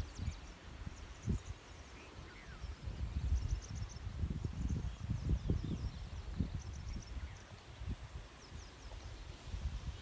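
Insects droning in one steady high-pitched whine, with faint short chirps over it, while wind buffets the microphone in irregular low gusts.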